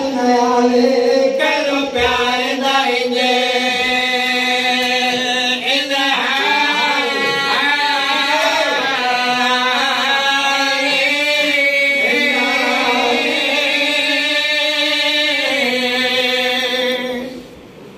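Several men's voices singing a slow, drawn-out devotional chant together into a microphone, in the style of a majlis recitation, with long held notes and wavering ornaments. The singing breaks off about half a second before the end.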